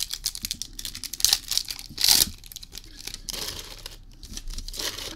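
Foil wrapper of a Pokémon trading-card booster pack being torn open and crinkled by hand, a run of crackling rustles with the loudest tear about two seconds in, then more crinkling as the cards are pulled out.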